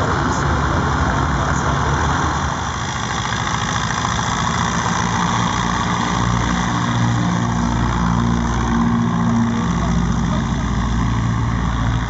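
Junkers Ju-52/3m trimotor taxiing, its three BMW 132 nine-cylinder radial engines running at low power. They make a steady low drone whose pitch wavers a little midway through.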